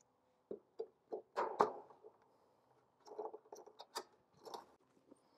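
Wires and connectors being handled in a heat pump condenser's electrical compartment: a run of short clicks, rustles and scrapes, louder about a second and a half in, with a sharp click about four seconds in.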